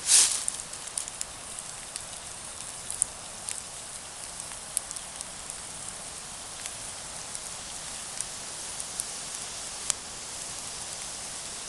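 Campfire burning: a steady hiss with scattered sharp crackles and pops, and a louder burst of crackling right at the start.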